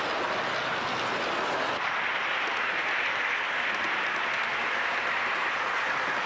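Model trains running on the layout track, a steady rushing rattle of small wheels on rail that shifts higher in pitch about two seconds in.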